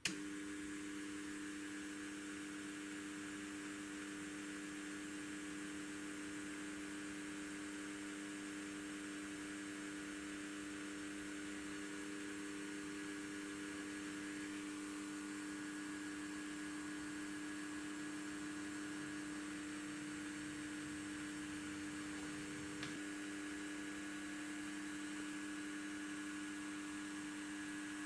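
Electric rotary tool spinning a thin drill-bit shaft at about 27,500 rpm: a steady motor hum and whine made of several constant tones over a hiss. It starts abruptly and holds steady, with one small click about three-quarters of the way through.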